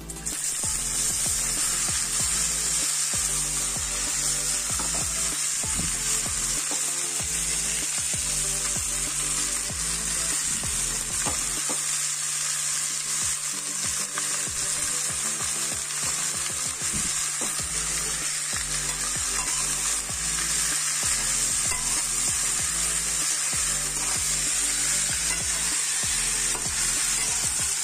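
Shredded ash gourd dropped into hot mustard oil in a metal kadai, starting a loud steady sizzle all at once, with a spatula stirring and scraping against the pan now and then.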